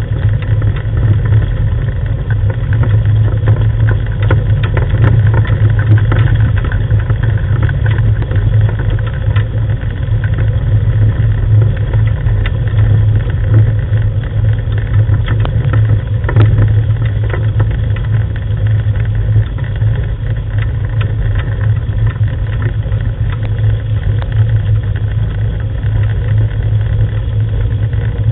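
Wheeled dog-training rig running over a gravel track behind a team of harnessed sled dogs: a loud, steady low rumble with many small clicks and rattles.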